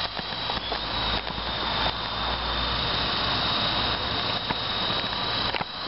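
Small electric remote-control helicopter flying overhead, a thin steady high whine from its motor and rotors, over wind rushing and rumbling on the microphone.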